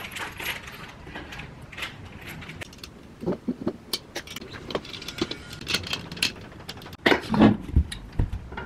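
White metal tubes of a clothes-hanger rack being handled and fitted together: scattered light clicks, clinks and knocks of metal parts, with a heavier knock about seven seconds in.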